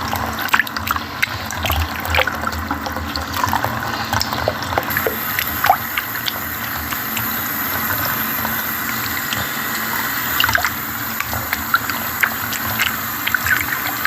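Water running steadily from a tap into a filling sink or basin, with scattered splashes and drips.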